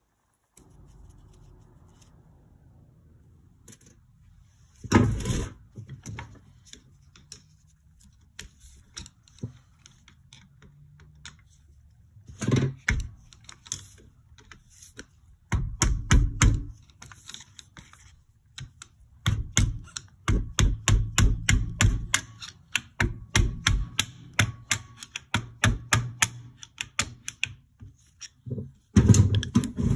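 Metal clicks, taps and knocks from a Yamaha YZ250F's cylinder and stuck piston being worked loose and pried apart by hand. A few heavier knocks come about five, twelve and sixteen seconds in, then a long run of rapid clicking and tapping in the last third.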